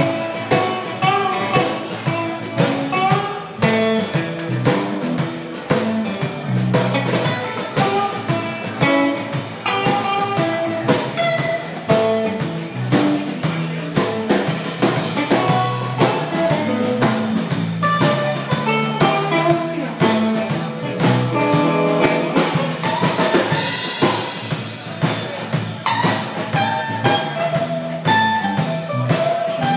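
Live blues band playing an instrumental passage: electric guitar lines over electric bass and a steady drum kit beat.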